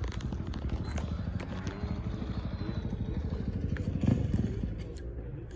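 A dirt bike engine running steadily, a fast low pulsing rumble that swells briefly about four seconds in, with a few light handling clicks.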